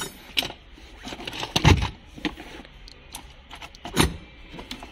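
Metal hand tools clinking, scraping and rattling as a hand rummages through a plastic toolbox, with two louder knocks, one about a second and a half in and one near the end.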